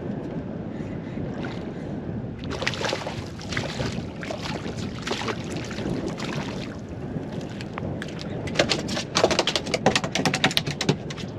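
Wind buffeting the microphone over water lapping against a small boat's hull, with gusts for a few seconds from about the start of the third second. Near the end comes a quick run of sharp slaps and splashes.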